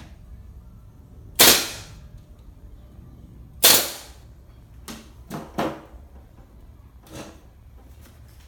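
A brad nailer firing twice, about two seconds apart, each shot a loud, sharp crack with a short tail. After it come a few softer clicks and knocks.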